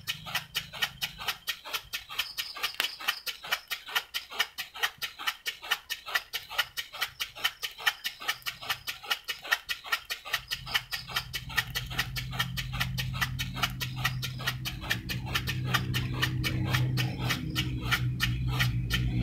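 Small homemade single-cylinder steam engine running, giving an evenly spaced run of sharp puffing clicks, several a second, as it drives a saw-blade flywheel. From about halfway a low steady hum rises beneath the clicks and grows louder.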